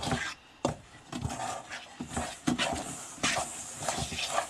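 Hand squishing and mixing sticky tortilla dough in a stainless steel bowl: irregular wet squelching noises.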